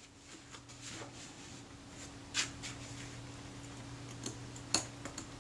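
A few light, scattered metallic clicks from the small parts of a Kodak Retina IIIS shutter's mechanism plate being handled with fingers and tweezers, the clearest about two and a half and five seconds in, over a low steady hum.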